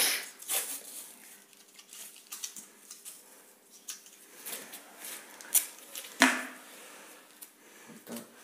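Athletic adhesive tape being pulled off its roll in several short, ripping pulls, with handling rustle between; the loudest rips come about five and a half and six seconds in.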